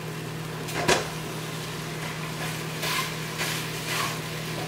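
Wooden spoon knocking and scraping in a steel pot as raw ground beef is worked into frying mushrooms: one sharp knock about a second in, then several scraping strokes. A microwave oven hums steadily underneath.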